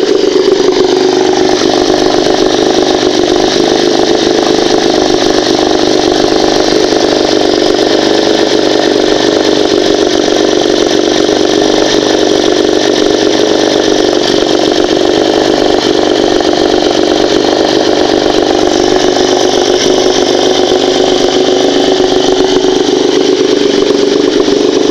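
Moskva-M two-cylinder two-stroke outboard motor running steadily, with no knocking or ringing. This is its normal running now that the flywheel no longer strikes the ignition coil core.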